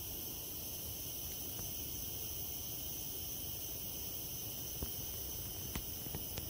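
A steady chorus of forest insects, several high-pitched drones held at once without a break. A few short clicks come in the last two seconds.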